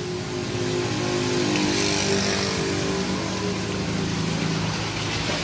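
A motor vehicle engine running steadily, its pitch drifting slightly lower through the middle, over a steady hiss.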